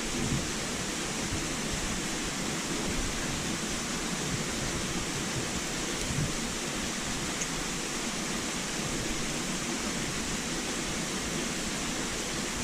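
Steady rush of flowing river water, an even hiss with no distinct sounds standing out.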